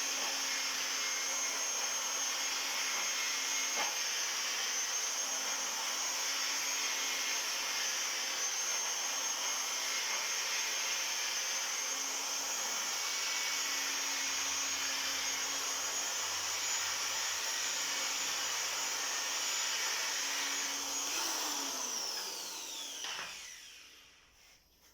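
High-speed electric grinding tool running steadily against the inner friction surface of a drum brake's drum, smoothing the surface to cure a brake noise. Near the end it is switched off and its pitch falls as it spins down.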